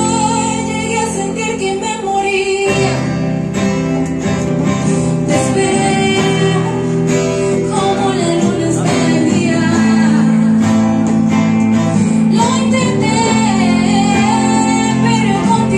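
Live music: a woman singing a melody with acoustic guitar and small-band accompaniment.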